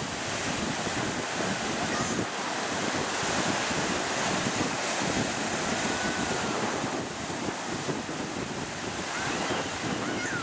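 Ocean surf breaking and washing in the shallows, a steady rushing wash, with wind buffeting the microphone.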